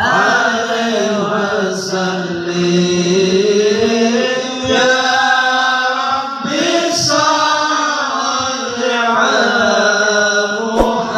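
A group of voices chanting Islamic sholawat in unison, with long, slowly gliding sung lines. There is a brief click near the end.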